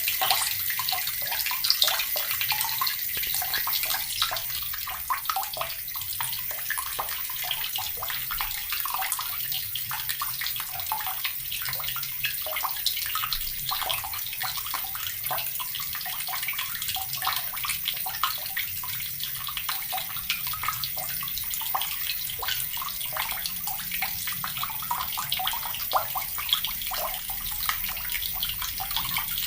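Water running steadily from a tap and splashing into the water below, a constant hiss with small irregular splashes.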